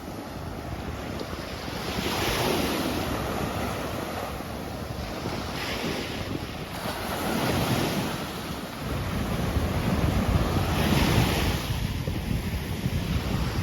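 Sea waves washing onto the beach, the surf swelling every few seconds, with wind buffeting the microphone in a low rumble that grows heavier about nine seconds in.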